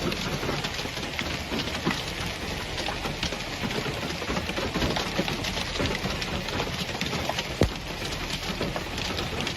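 Steady, dense patter of storm precipitation pelting hard surfaces, full of sharp individual hits, with one louder hit about three-quarters of the way through.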